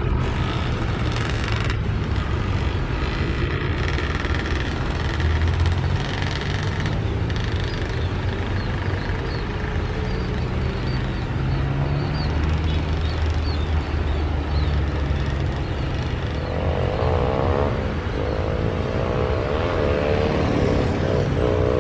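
Steady low engine rumble, with a wavering higher tone coming in for the last few seconds.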